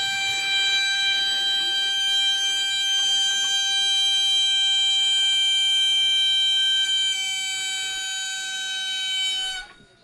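Pressure regulator on a nitrogen cylinder whistling with a steady high tone as gas flows through it to pressurise an AC line set for a leak test. The whistle dips and cuts off suddenly near the end as the cylinder valve is closed.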